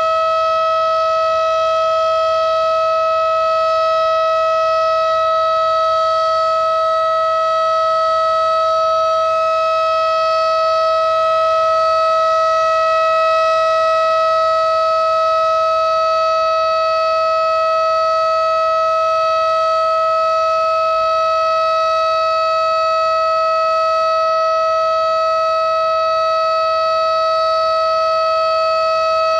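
Federal Signal STH-10 single-tone outdoor warning siren sounding a loud, steady tone at full speed during a test, with no rise or fall in pitch.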